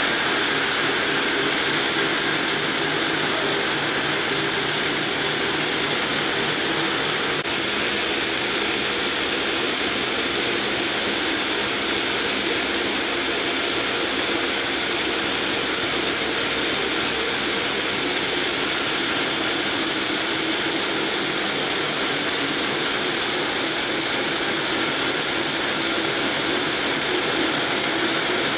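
Multi-blade granite block cutter running: large circular diamond blades cutting through a granite block under a water spray, a loud steady hissing rush with a low motor hum underneath, dipping slightly about seven seconds in.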